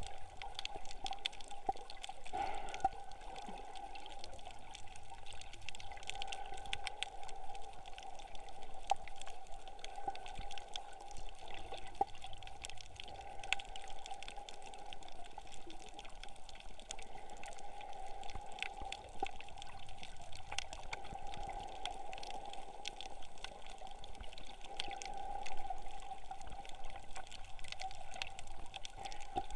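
Underwater ambience picked up by a camera in its waterproof housing: a steady muffled water sound with many faint, scattered crackling clicks.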